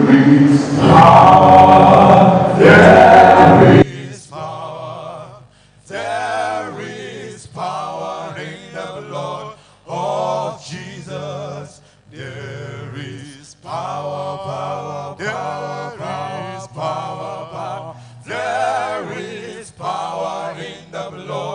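Male a cappella gospel group singing in harmony over a sustained low bass note, in short phrases with brief gaps between them. The first four seconds are much louder and denser, then cut off abruptly.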